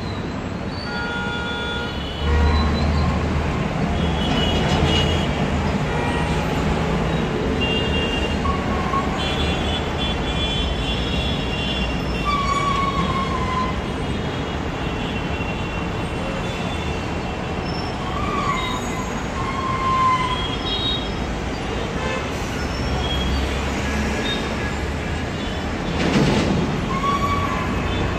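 Steady traffic noise from the street, its low rumble growing louder about two seconds in, with scattered short high-pitched tones and chirps over it.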